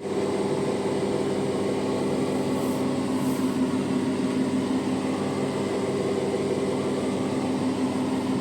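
Bosch dishwasher running: a steady motor hum with a few low held tones over a wash of noise.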